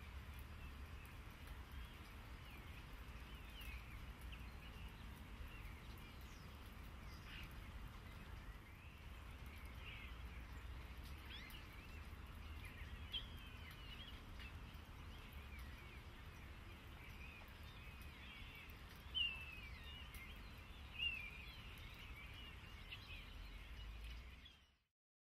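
Scattered short chirps and calls from a flock of small birds on overhead wires, faint over a steady low rumble, with two louder chirps near the end before everything fades out.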